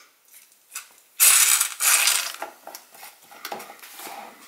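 Plastic blade base of a NutriBullet cup being twisted off, with a run of scraping and clicking from the plastic threads. The loudest scraping comes about a second in.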